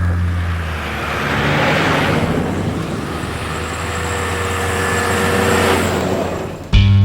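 Motor vehicle running, a steady engine and road noise that swells and eases. Music starts suddenly near the end.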